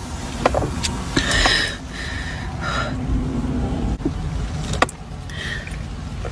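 Steady low rumble of a car cabin on the move, with a few sharp clicks and short faint squeaks.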